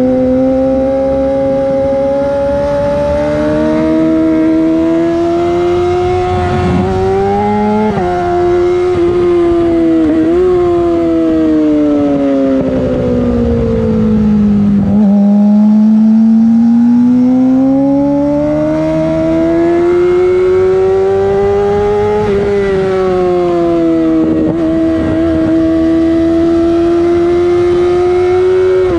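Yamaha R6 inline-four running through a LeoVince SBK full exhaust, heard onboard at high revs. The pitch climbs under acceleration with brief sharp dips, falls away over several seconds near the middle, then climbs again.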